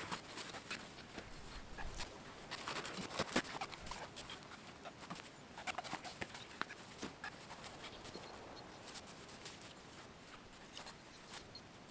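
Quiet rustling of nylon camping gear being stuffed into a rucksack, with scattered small clicks and knocks.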